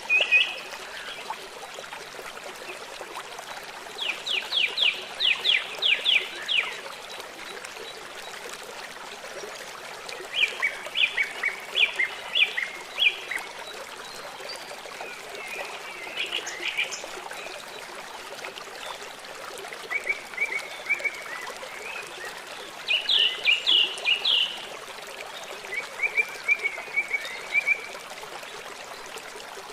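A songbird singing short phrases of rapid repeated notes every few seconds, over the steady rush of a trickling stream.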